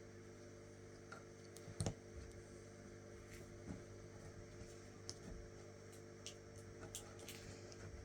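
Faint, scattered small clicks of a latch hook tool being worked through rug canvas and yarn, with one louder click about two seconds in, over a low steady hum.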